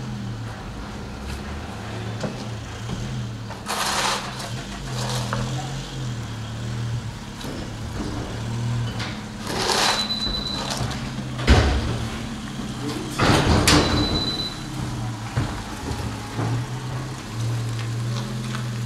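A steel shovel scrapes over asphalt several times while scooping up a spilled heap of earth, over the steady hum of an idling engine. A sharp knock comes near the middle, and brief high squeaks come about ten and fourteen seconds in.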